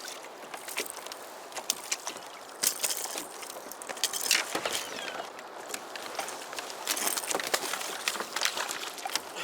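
Irregular small clicks, knocks and rattles over a steady hiss, the sharpest knocks about a third and halfway through.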